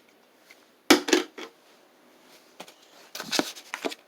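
Handling noise of hard objects: a sharp knock about a second in, then a run of clicks and knocks near the end.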